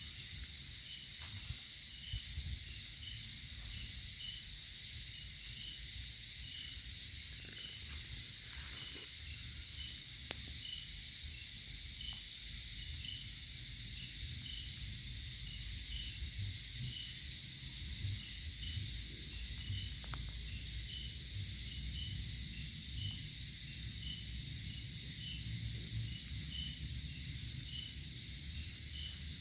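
Outdoor ambience of insects: a steady high buzz with a cricket-like chirp repeating a little over once a second, over a low rumble, with a few faint clicks.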